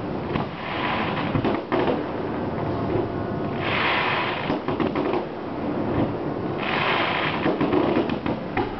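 Fireworks going off: a dense run of bangs and crackles. There are two longer hissing, crackling spells, about four and about seven seconds in.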